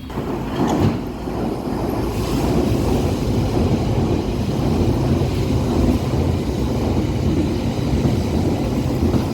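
London Underground train running past the platform, a steady loud rumble of wheels and motors on the track.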